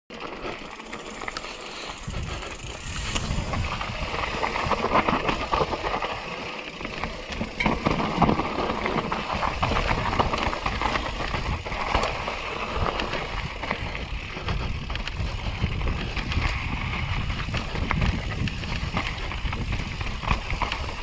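YT Capra enduro mountain bike riding fast down a rocky gravel trail: tyres crunching over loose stones and the bike rattling over bumps in a dense run of small clicks. Wind rumbles on the camera's microphone.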